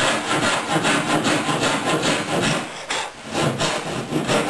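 Thin-bladed draw saw (pull saw) sawing back and forth through the butt joint between a wooden boat rail and its block, in quick rasping strokes about two to three a second, cutting the mating faces into a tight, square fit.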